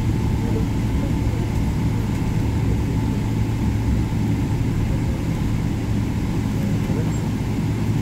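Steady deep rumble inside an airliner cabin as the jet taxis toward the runway, with an unchanging low engine hum underneath.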